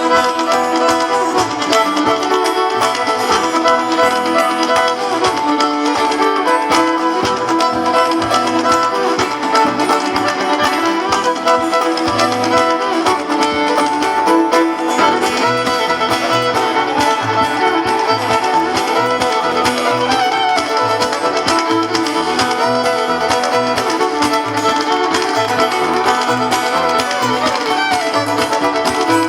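Acoustic string band playing an instrumental passage live, fiddle and banjo to the fore over guitar.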